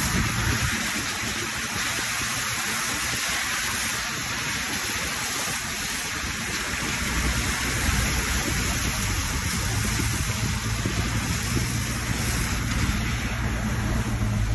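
Military jeep driving through a shallow river: the wheels churn and spray water in a steady rushing hiss, over the engine's low drone, which grows louder about halfway through.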